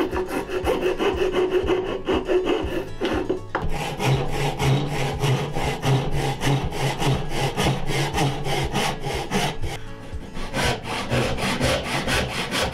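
For about the first three seconds, a hand tool scrapes in a joint cut in oak. Then a backsaw starts cutting across an oak board in quick, even strokes.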